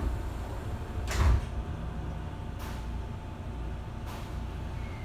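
Sliding passenger doors of a Seibu 6000-series train closing, with a loud thud about a second in, followed by two brief hisses over the car's steady low rumble.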